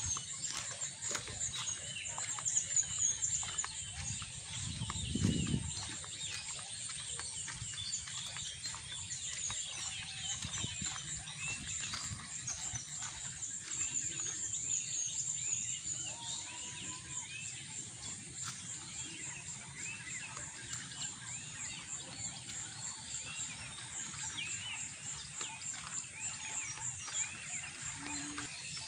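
Outdoor ambience of many small birds chirping in a dense, steady chorus of short repeated calls. A brief low rumble comes about five seconds in.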